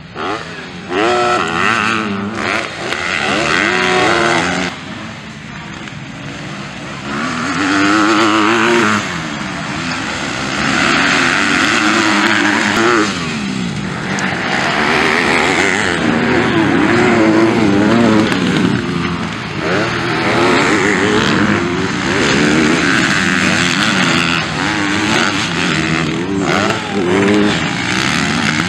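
Motocross bikes racing past, their engines revving hard with the pitch climbing and dropping again and again, in several loud surges as riders go by.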